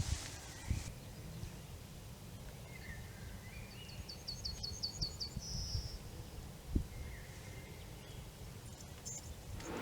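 A songbird singing: about four seconds in comes a quick run of about eight high repeated notes ending in a short trill, with a few fainter chirps around it. A low steady rumble runs underneath.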